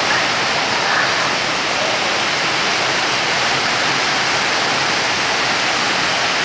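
Heavy rain pouring down steadily, a loud even hiss.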